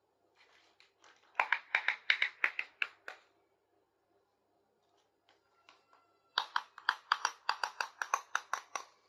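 Two runs of quick, regular clicks, about five a second, from small plastic toy kitchen pieces being handled, with a pause between them.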